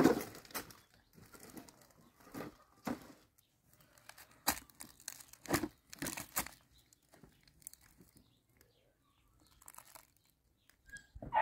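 Woven plastic sack rustling and crinkling as it is handled, with crunching steps on dry leaves and stony ground. The sounds come in irregular bursts with a quieter pause about two-thirds of the way through.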